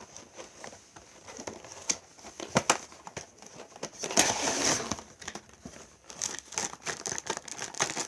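Funko Pop packaging being opened by hand: the cardboard box and plastic tray crinkle and click irregularly, with a louder stretch of rustling lasting about a second near the middle.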